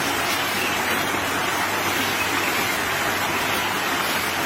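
A steady, even rushing noise with no pitch or rhythm.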